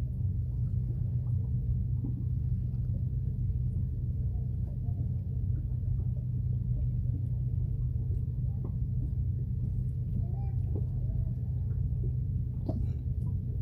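A small fishing boat's engine idling, a steady low hum that does not change.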